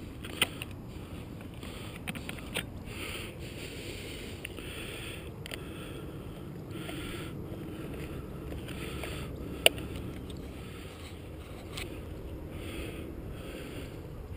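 Steady low rumble of wind and field noise on a head-mounted camera's microphone, with soft rustling and a few light clicks of handling, and one sharp click about ten seconds in.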